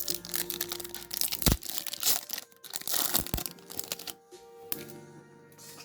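A foil trading-card booster pack being torn open, its wrapper crinkling and crackling for about four seconds with a couple of sharp knocks, under background music.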